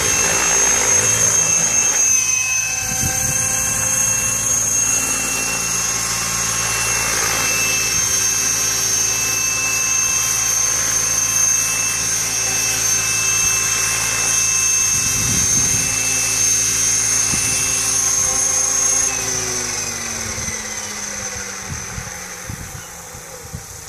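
Radio-controlled model helicopter hovering: a steady high whine over the rotor's hum. About nineteen seconds in, the pitch falls and the sound grows quieter.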